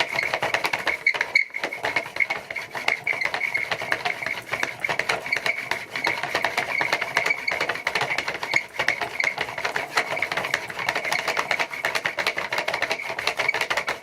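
Homemade washing-machine-motor generator being turned over and over to charge a capacitor: a continuous rasping whir of dense rapid clicks with a steady high whine, with a brief dip about a second and a half in.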